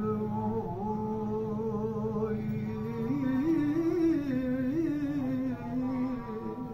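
A man singing unaccompanied: one long held note for about three seconds, then a wavering, ornamented rise and fall in pitch.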